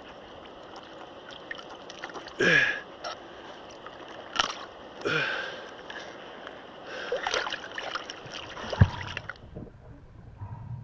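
River water splashing and sloshing around a wading spearfisher in a wetsuit as he handles a speared pike at the surface, with several sharp splashes. About nine seconds in the splashing stops and the sound turns dull and muffled as it goes underwater.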